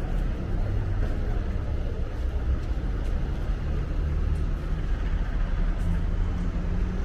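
Street traffic noise: a steady low rumble of idling city buses and passing cars.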